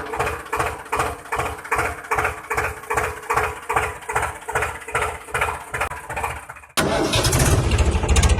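An engine cranking over on its starter with a steady whine and about three even pulses a second. About seven seconds in it changes abruptly to a fast, steady low running sound, as if the engine has caught.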